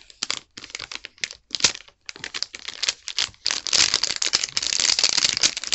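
A parcel holding a replacement laptop battery being opened by hand: a rapid run of clicks and rustles. It starts in short spurts, then turns dense and louder about three and a half seconds in.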